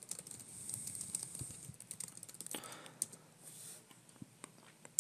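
Typing on a computer keyboard: a quick, irregular run of faint key clicks that thins out after about three seconds.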